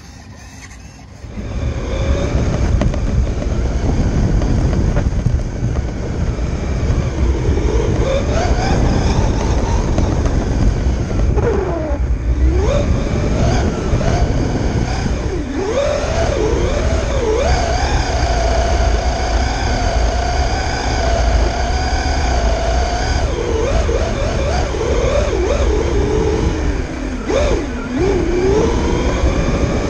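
The electric motor of a LiPo-powered RC drag truck whining, its pitch rising and falling again and again with the throttle and held steady and high for a few seconds past the middle, over a heavy low rumble of tyres and air on a camera riding on the car. The sound starts suddenly about a second and a half in.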